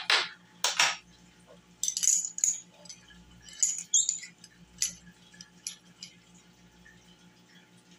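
Metal measuring spoons and spice jars clinking and tapping as they are handled and set down on a wooden table: a scattering of short, sharp clinks, over a faint steady hum.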